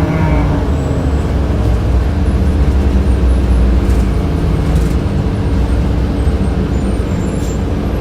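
On-board sound of a 2007 Orion VII city bus under way: a steady engine drone and low rumble, with the HVAC system running.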